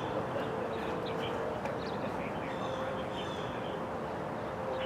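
Distant outdoor tornado warning sirens holding a steady tone that shifts slightly in pitch, with songbirds chirping and trilling over a steady background rush.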